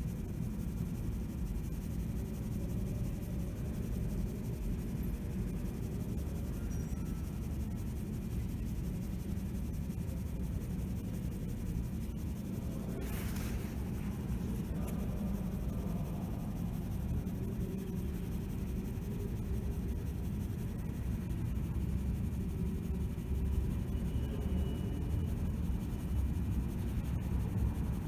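Low, steady rumble of train-platform ambience, with one short hiss about halfway through.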